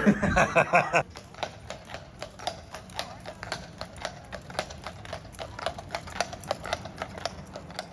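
A man's voice for about the first second, then a run of quick, irregular clicks and taps, several a second.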